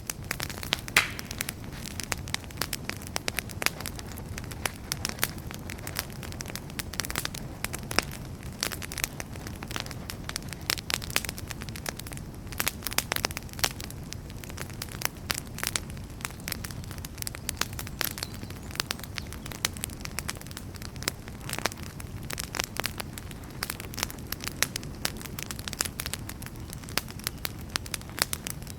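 Campfire burning, with dense irregular crackles and pops over a steady low rumble of flame.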